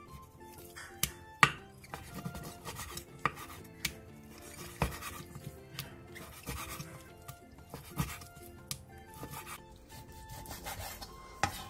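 Kitchen knife cutting through boneless chicken thigh meat on a wooden cutting board, the blade knocking against the board at irregular intervals; the loudest knock comes about a second and a half in. Soft background music plays underneath.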